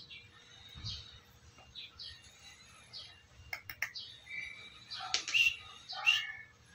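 Small birds chirping in short, repeated high calls, loudest about five to six seconds in. A few quick clicks come about three and a half seconds in.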